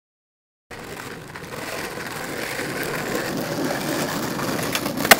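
Skateboard wheels rolling on asphalt, growing steadily louder as the board approaches, with one sharp clack near the end. The first part of a second is silent.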